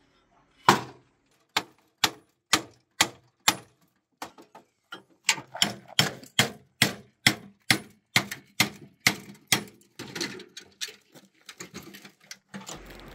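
Hammer blows on the steel core of a scrapped microwave-oven transformer, breaking it open to free the copper windings. The strikes come about two a second at first, then quicker and more even at nearly three a second, and end in a few lighter knocks.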